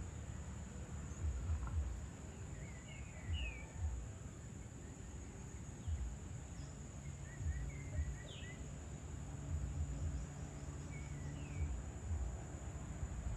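Evening outdoor ambience: a few short bird chirps in small clusters, over a steady high insect drone. A low rumble that comes and goes in gusts is the loudest part, and a faint low hum runs through the second half.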